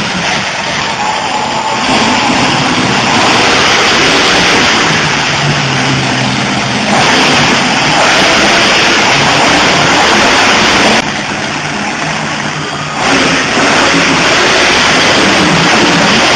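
Competition trucks' engines revving hard as they drive across a dirt arena, loud and unbroken, easing off briefly about two-thirds of the way through.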